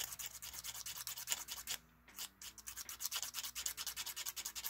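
Fine sandpaper rubbed quickly back and forth over the end of a small plastic Lego antenna piece, evening it up for a snug fit: a rapid scratching of many short strokes, with a brief pause about two seconds in.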